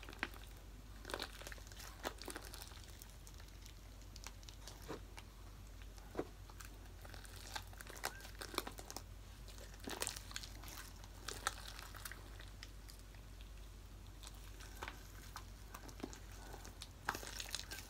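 Homemade PVA-glue slime being stretched, folded and squeezed in the hands, giving short, irregular sticky clicks and crackles.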